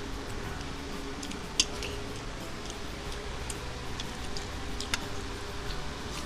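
Eating at the table: scattered small clicks and taps of hands and food on plates, with one sharper click about one and a half seconds in, over a steady low hum.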